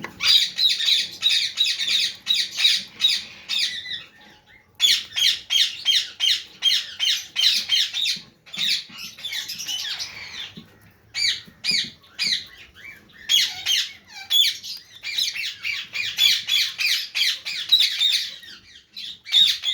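Parrots squawking in rapid runs of harsh calls, about three or four a second, in bouts broken by short pauses.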